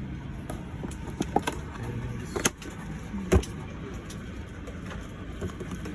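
Steady hum of a parked Boeing 737-800 cabin during boarding, with a few clicks and knocks; the loudest is a low thump about three and a half seconds in.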